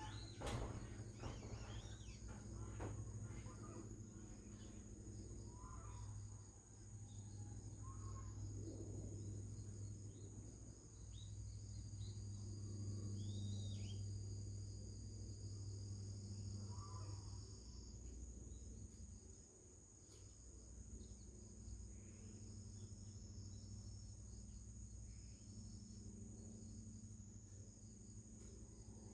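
Steady high-pitched insect trilling with a few short bird chirps, over a steady low hum.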